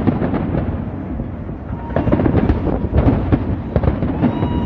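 Large fireworks display: a dense run of bangs and crackling shell bursts over a continuous low rumble.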